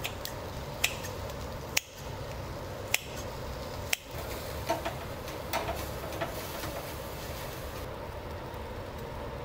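Kitchen scissors snipping grilled lamb chops held in steel tongs over a wire grill grate: a few sharp metallic clicks, about one a second for the first six seconds, over steady low background noise.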